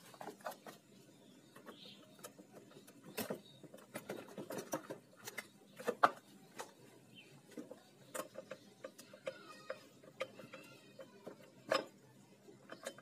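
Light, irregular clicks and knocks of metal as the magneto cover is worked loose from a Yamaha Vega ZR crankcase by hand. Sharper knocks come about six seconds in and again near the end.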